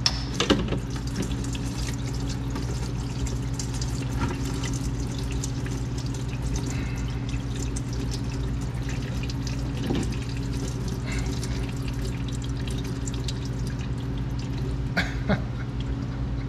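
Hot engine oil pouring and splattering from the crankcase drain hole of a Can-Am Outlander into a drain pan, with a steady low hum underneath. The oil is at operating temperature after a long warm-up idle.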